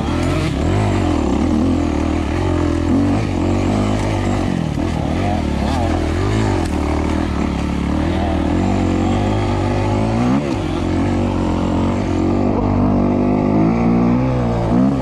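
2008 Kawasaki KX250F's four-stroke single-cylinder engine on the move, revving up and easing off over and over, the pitch rising and falling every second or two.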